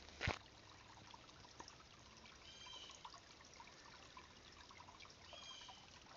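Faint, steady trickle of a creek. A sharp click about a third of a second in, and two short high chirps, a few seconds apart.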